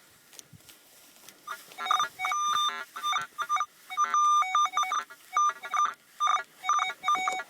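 Minelab CTX 3030 metal detector giving its target tone as the coil is swept back and forth over a buried target: groups of short electronic beeps at a couple of pitches, starting about one and a half seconds in. It is a clear, strong signal of a target worth digging.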